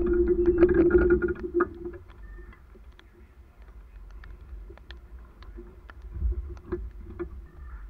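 Road traffic on a wet street: a vehicle's steady engine hum is loud at first and drops away about two seconds in. Quieter traffic noise with scattered light ticks follows.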